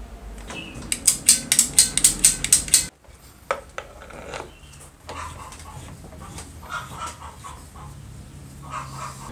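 Chicken clucking: a fast run of about ten loud clucks, then softer, scattered clucking.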